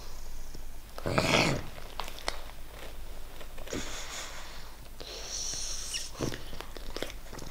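English bulldog puppy breathing noisily through a congested nose: a loud snort about a second in, then hissy nasal breaths around four and six seconds in. The stuffy breathing comes from a cold with a runny nose.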